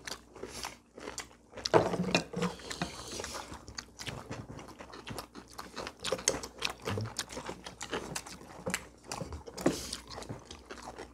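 Several people eating at a table: chewing, and slurping kalguksu noodles, with chopsticks and spoons clicking irregularly against bowls.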